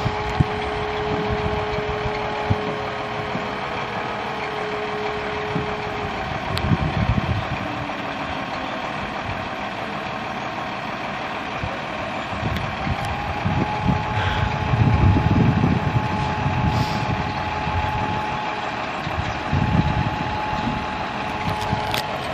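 Fire engines running and revving as they turn out, with louder engine swells about seven, fifteen and twenty seconds in. A held siren tone slides down in pitch and stops about six seconds in, and a higher steady tone comes in about halfway through.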